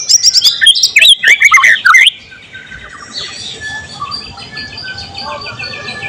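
White-rumped shama singing a loud, fast burst of sliding whistles and sharp clicking notes for about two seconds, then softer, quick repeated chirping.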